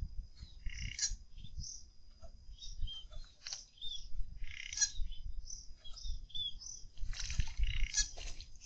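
Wild birds chirping and calling with many short, high calls scattered throughout, over low thuds and rumble.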